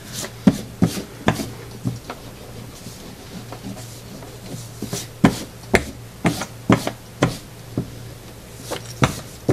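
Rubber eraser scrubbing over drawing paper on a tabletop in quick back-and-forth strokes, about two a second, in two runs with a pause between them. The erasing clears pencil marks from under inked lines. A steady low hum runs underneath.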